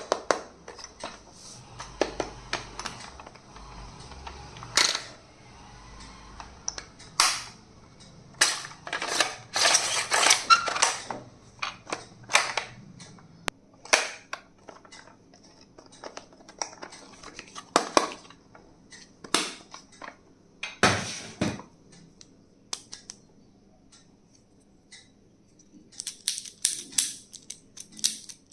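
Stationery and its packaging being handled: scattered sharp clicks and taps, with a dense run of quick clicks and rustling about ten seconds in and another quick run of clicks near the end.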